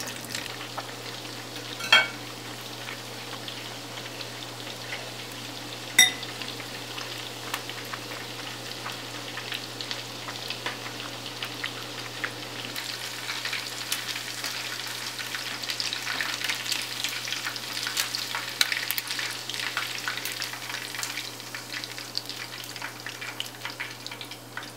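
Battered chicken pieces deep-frying in hot oil, a steady crackling sizzle. Two sharp clinks stand out about 2 and 6 seconds in. The crackle grows busier about halfway, as the pieces are stirred in the oil with a wire mesh strainer.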